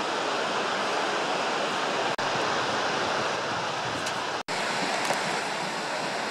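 River rapids rushing steadily below, a continuous hiss of white water. The sound cuts out for a split second twice.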